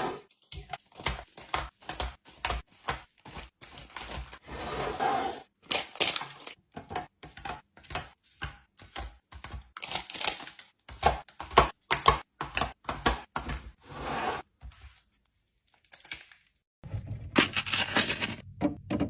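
Drinks and sweets being handled and set into a fridge: a rapid run of clicks and knocks from bottles, cans and packaged items being put down, with stretches of packaging crinkling and tearing. A short pause comes about three-quarters of the way through, followed by a louder rustle near the end.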